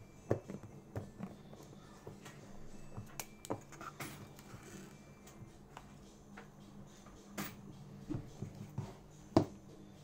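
Light handling sounds from a smartphone box: scattered taps, clicks and knocks of fingers and the phone against the cardboard box and its insert, the sharpest near the end.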